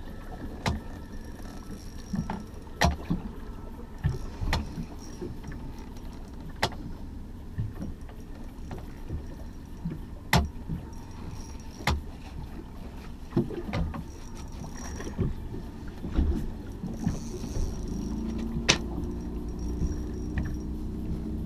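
Small motorboat at sea: a steady low rumble of water and motion with irregular sharp knocks from the boat, every second or two. A steady engine hum comes in about two-thirds of the way through.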